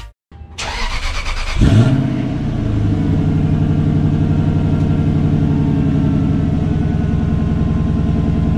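1998 Lexus GS400's 4.0-litre V8 on a cold start: the starter cranks for about a second, the engine catches with a brief rev flare, then settles into a steady idle. It is heard at the tailpipes through an exhaust with the first muffler and both resonators removed and the stock 2-inch pipes and mufflers kept.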